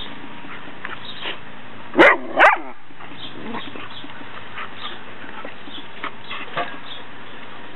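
A dog gives two short, loud barks close together about two seconds in, while playing rough with another dog.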